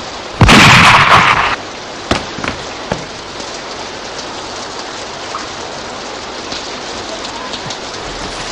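Steady heavy rain. About half a second in, a loud sudden blast lasts about a second, and a few sharp cracks follow around two to three seconds in.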